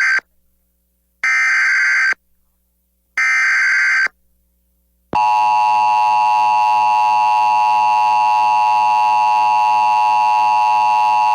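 Emergency Alert System SAME header: three bursts of shrill digital data, each about a second long with about a second of silence between them. They are followed about five seconds in by the steady alert attention tone, signalling that a new warning is about to be read.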